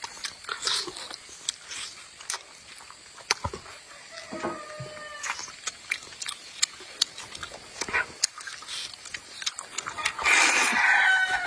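Close-miked chewing of braised duck, with wet lip smacks and clicks, then a louder slurp of spicy rice noodles near the end.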